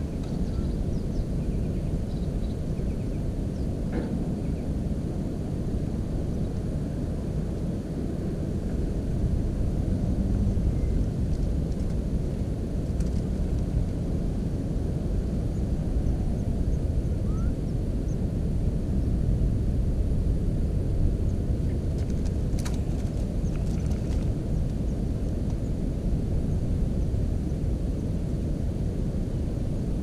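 Steady low rumble of wind buffeting the camera's microphone, with a couple of faint clicks, one about four seconds in and a few around the twenty-two second mark.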